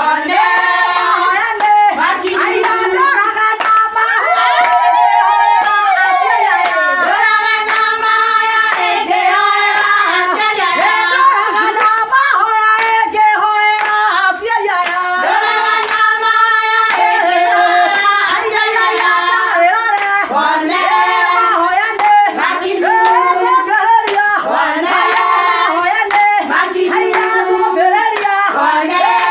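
Women singing a song with rhythmic hand clapping keeping time.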